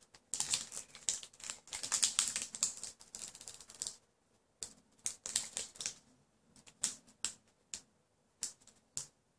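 Foil wrapper of a Pokémon booster pack crinkling and crackling in irregular spurts as it is slowly and carefully opened by hand. The crackles are dense for the first few seconds, stop briefly, then come back sparser.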